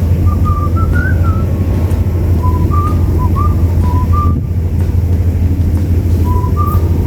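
Short, high whistled chirps in loose repeated phrases, like a small bird's song, over a steady loud low rumble.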